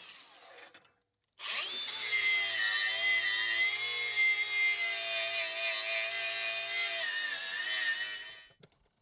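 Cordless angle grinder spinning up about a second and a half in, then running with a steady high whine as it grinds rust off a steel plow moldboard, and winding down near the end.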